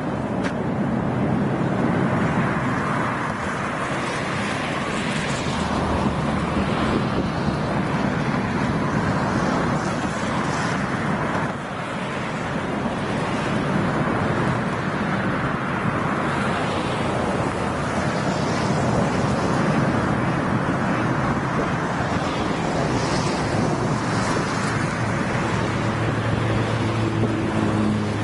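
Steady noise of a long freight train of tank cars rolling along the tracks, with wind on the microphone.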